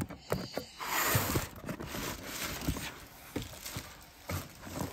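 Cardboard box and plastic packaging being handled and unpacked: crinkling and rustling, loudest about a second in, with scattered light knocks.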